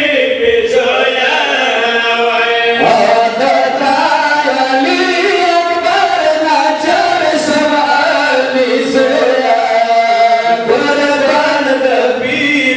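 Group of men chanting a Pashto noha, a Shia lament, together into microphones, their voices drawing out long held notes that glide between pitches.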